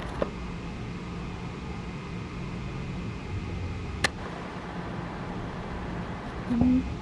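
Steady low background hum with a faint constant tone, broken by a sharp click about four seconds in.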